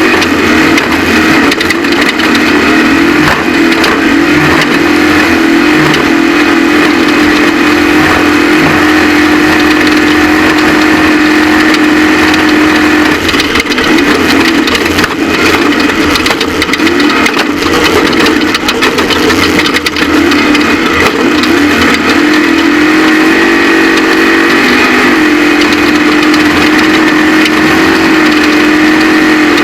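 Off-road race vehicle's engine running hard at high, steady revs over continuous loud rumble and rattle. Its pitch wavers and drops for a few seconds around the middle, then climbs back and holds near the end.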